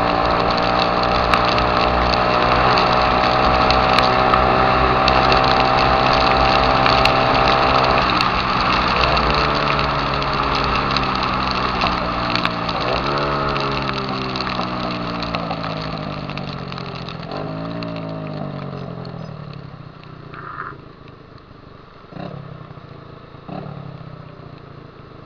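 Honda Titan 150 single-cylinder four-stroke running through a loud 'viúva-negra' aftermarket exhaust. It holds steady revs for about eight seconds, then decelerates, its pitch falling in stages with brief jumps back up. It settles to a low idle, with three short throttle blips near the end.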